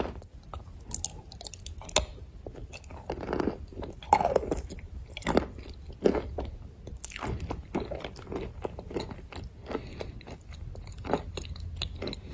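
Close-up chewing and crunching of Uzbek white edible clay: irregular crisp crunches as the pieces are bitten and broken, mixed with softer wet chewing.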